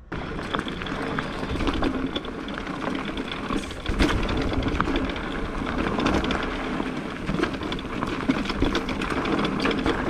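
E-bike rolling down a rocky, rooty trail: a steady rolling rumble with dense rattling and clicking from the tyres on loose stones and the bike's parts, and a sharper knock about four seconds in.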